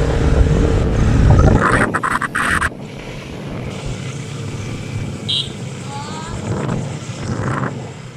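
Motorbike riding noise, engine and wind rumble, that drops away about a second and a half in to a quieter steady hum, with a short loud buzzing sound about two seconds in.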